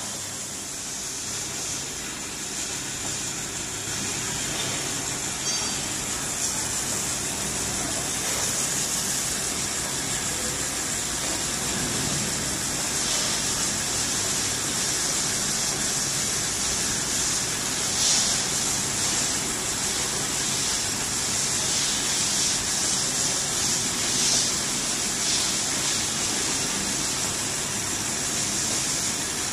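Spool winding machine running steadily as it winds PET film onto a core under a pressure roller: a steady high hiss over a low machine hum.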